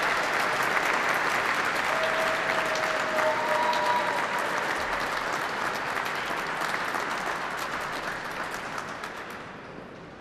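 Audience applauding in a large hall, the clapping dying away near the end.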